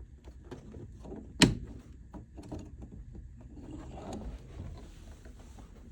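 Plastic interior trim and clips of a 2015 Nissan Rogue being worked loose by hand: a string of plastic clicks and knocks, with one sharp, loud knock about a second and a half in.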